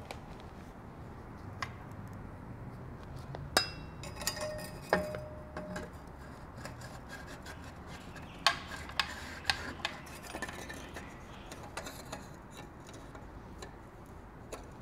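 Scattered metal clinks and taps with rubbing as a slip-on exhaust muffler is worked onto a motorcycle's mid-pipe and its clamp is handled; one clink about four seconds in rings on briefly.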